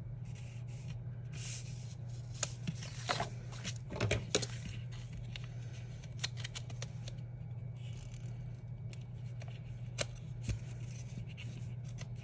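Paper stickers being handled and a tape runner dispensing adhesive onto the back of a sticker: soft rustles, scrapes and small clicks, bunched about two to four seconds in and again around ten seconds, over a steady low hum.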